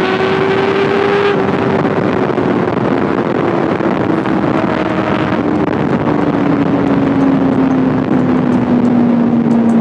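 Kawasaki ZX6R's 636cc inline-four engine running at speed, its note sliding slowly and steadily lower as the revs drop, under heavy wind rush on the microphone.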